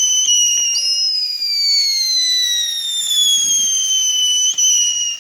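Whistling fireworks: two high whistles at once, each sliding slowly down in pitch, with a few faint pops, cutting off abruptly near the end.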